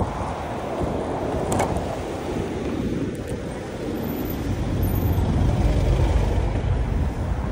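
Road traffic heard from among the cars: engines running close by as a steady low rumble, a little louder a few seconds in, with a single sharp click about a second and a half in.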